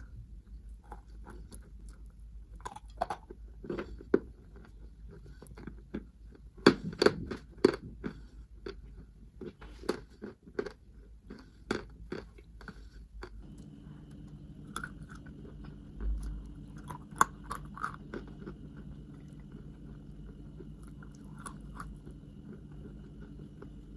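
Crisp bites and crunchy chewing of Maria chalk, close to the microphone. The crunches come thickest a few seconds in, then grow sparser. A steady low hum joins about halfway through.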